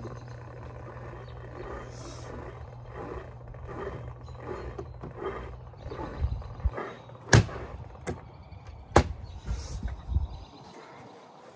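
Twin-tub portable washing machine's motor humming steadily while wet laundry is handled, with two sharp knocks in the second half; the hum stops near the end.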